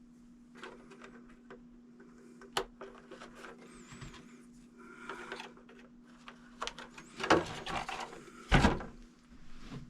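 Handling noises: scattered clicks and knocks over a steady low hum, with two louder thumps near the end.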